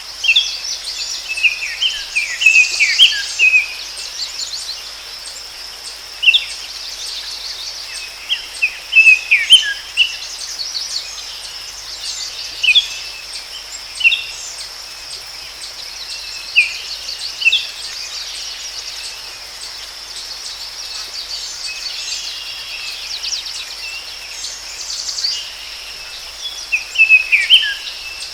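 Forest ambience: songbirds chirping in short bunches of quick calls every few seconds over a steady high insect drone.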